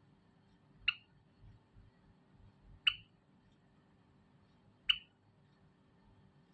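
Zebra finch giving three short, sharp calls, evenly spaced about two seconds apart.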